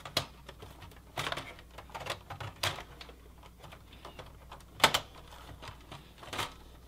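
Irregular plastic and metal clicks and knocks as the optical drive and its cables are handled and fitted into a Dell OptiPlex 780 small-form-factor case. The sharpest knock comes about five seconds in.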